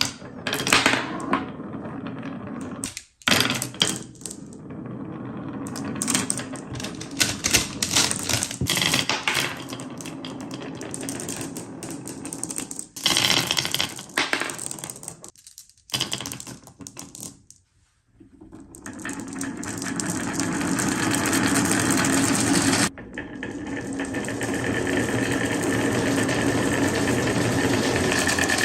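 Balls rolling and clattering down TrixTrack wave-slope marble-run track: rapid, uneven runs of clicks broken by a few short gaps, then a steady continuous rolling rattle through the last ten seconds.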